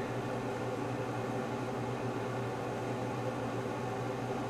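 Steady low hum with an even hiss over it, unchanging throughout: background machine or room noise with no distinct event.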